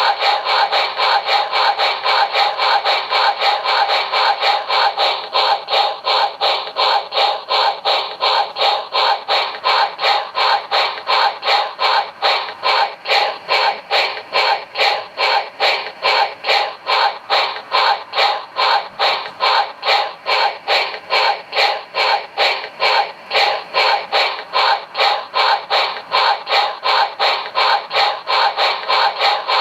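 QSI Maxx Traxx small steam sound effect: a steam locomotive's running chuffs, a fast, even beat of exhaust puffs that holds steady, played through a small speaker with no deep bass.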